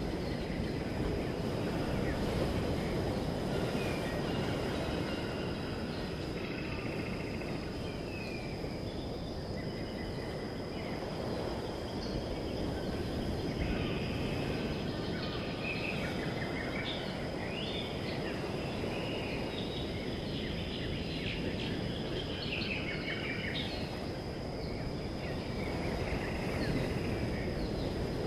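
Outdoor ambience: birds chirping on and off, busiest midway, and an insect's steady high-pitched drone over a low, steady rushing noise.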